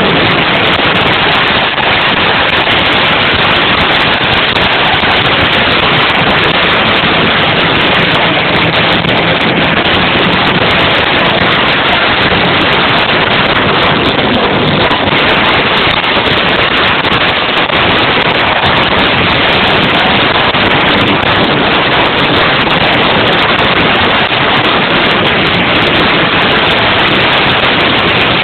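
Live rock band music overloading a small camera microphone, turned into a steady, dense crackling distortion in which hardly any notes can be made out.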